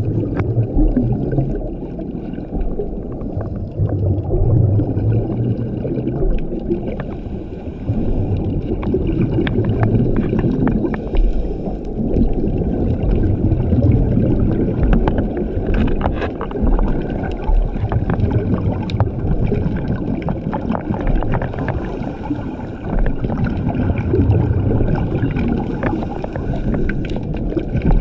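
Scuba regulator breathing heard underwater: each exhalation sends out a gurgling rush of exhaust bubbles, coming in regular swells every four to five seconds.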